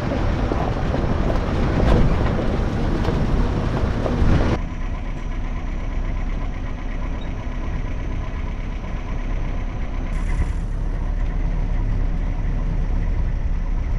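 Safari jeep driving on a dirt track: engine running with tyre and road rumble. About four and a half seconds in the sound drops abruptly to a quieter, steadier engine hum.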